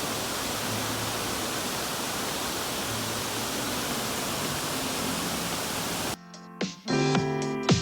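Steady rush of a waterfall pouring over a rock ledge, cut off suddenly about six seconds in by instrumental music with plucked notes.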